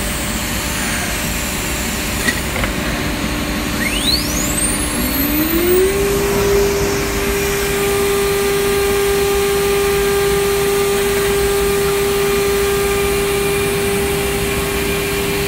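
A CNC nesting machine's router spindle spins up about four seconds in, its whine rising in pitch and then holding at a steady high speed. Underneath runs the machine's steady rushing noise, with a single click a little over two seconds in.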